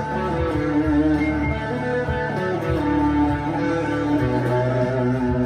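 Harley Benton CST-24T electric guitar with P90 pickups played through a Harley Benton Plexicon overdrive pedal into a Blackstar HT-1R valve amp: overdriven single-note lead lines with held notes. A steady low part underneath changes about four seconds in.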